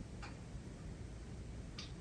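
Faint regular ticking: pairs of light clicks about half a second apart, repeating every two seconds, over a low steady hum.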